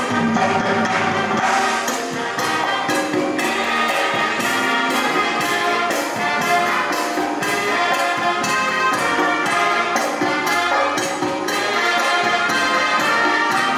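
Latin dance music with brass and a steady percussion beat.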